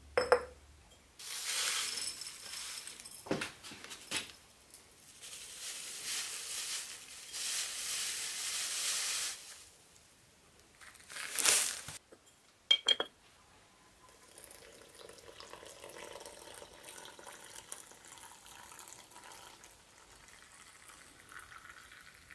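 A ceramic yerba mate cup clinks down on a metal machine table, then a long rustling hiss of loose yerba leaves going into it. A metal bombilla clicks against the cup, and then hot water trickles steadily from a jug into the cup.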